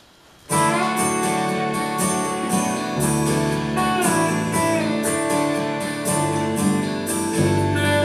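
A small band starts playing suddenly about half a second in: digital piano chords struck in a steady rhythm, with electric bass and electric guitar, the bass coming in stronger about three seconds in.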